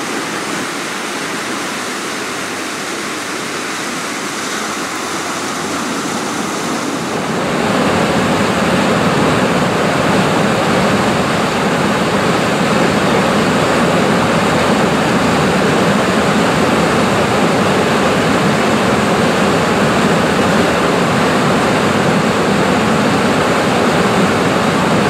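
Rushing water of a rain-swollen river, a steady noise that grows louder and fuller about seven seconds in.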